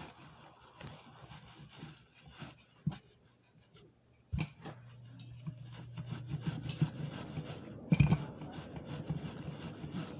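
Wooden rolling pin rolling back and forth over bread dough on a floured cloth, an irregular soft rubbing, with a few knocks as it is pressed down or shifted, the loudest about eight seconds in.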